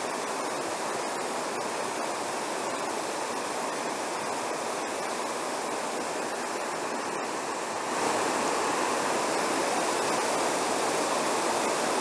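Small waterfall cascading over stepped rock ledges into a shallow creek: a steady rush of falling water, a little louder from about eight seconds in.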